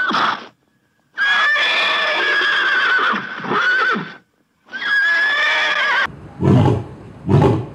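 Horse neighing: three whinnies, each a high held note breaking and falling away, the middle one long. Near the end a different animal starts a lower call, repeated about once a second.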